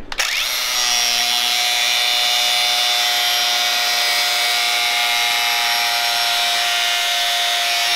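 DeWalt angle grinder with a damaged cutoff disc cutting into quarter-inch steel plate: a steady whine over a harsh grinding hiss, held without letup.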